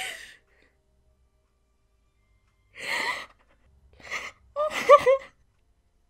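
A woman crying with her hand over her mouth: a sharp breath in about three seconds in, then another breath and a few high, wavering whimpering sobs near the end.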